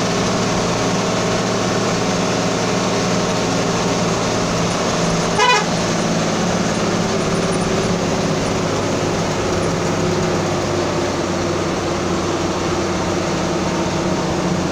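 A road vehicle's engine running steadily while driving, with a constant rush of road and wind noise. About five and a half seconds in, a brief horn toot.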